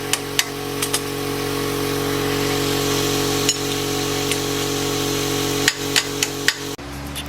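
Sharp metallic clicks and knocks of hand tools working on the rear suspension, over a steady machine hum. The knocks come in a few about a second in and a quick cluster near the end; the hum cuts off abruptly just before the end.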